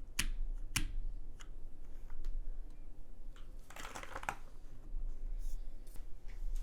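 Custom zekk.works Seulgi V2 mechanical keyboard, with an aluminum plate, Krytox 205g0-lubed Cherry MX Black linear switches and SAU-profile keycaps, being typed on slowly: scattered single keystrokes, with a short quick run of keys about four seconds in.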